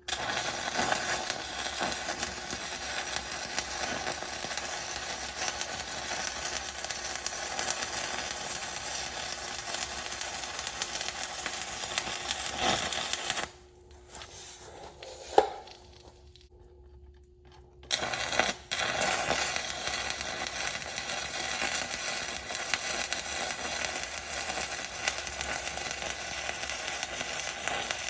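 Stick-welding arc crackling and sizzling as a bead is run with a 7018 rod around the inside of a rusted-in wheel bearing, to shrink it so it will come loose. The arc stops about halfway through, there is a single sharp tap during the pause, and the arc strikes again about four seconds later and runs on.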